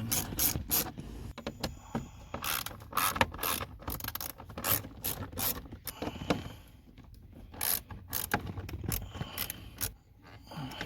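Hand ratchet clicking in short, irregular runs as screws are backed out of a plastic under-dash panel by hand.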